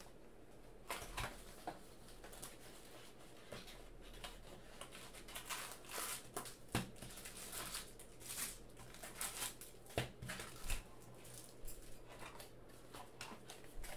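Plastic wrapping and card packs being crinkled, torn and handled as a box of trading cards is opened, with scattered short clicks and taps of cardboard.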